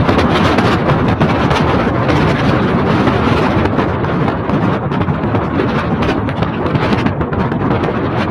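Car driving at speed on a wet road: a loud, steady rush of road and wind noise.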